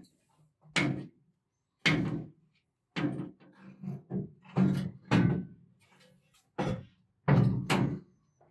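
About seven heavy knocks and thunks at irregular intervals, from things being handled in a steam locomotive's cab.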